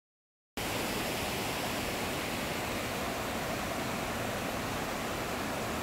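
Mountain stream running over rock slabs, a steady rushing of water that starts abruptly about half a second in.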